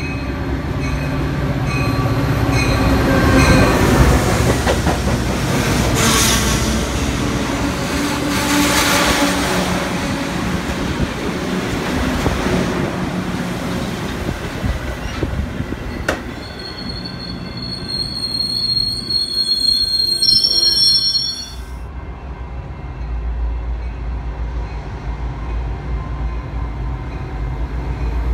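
Metra commuter train, a diesel locomotive with stainless bilevel passenger cars, passing close by with loud rolling noise from its wheels on the rails. Two-thirds of the way through, a high, piercing squeal of steel on steel with several tones sets in for about five seconds and cuts off suddenly. It is followed by a steady low rumble.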